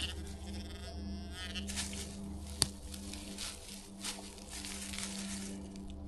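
Digging in soil: several scraping strokes of a digging tool, with one sharp clink about two and a half seconds in, over a steady low hum.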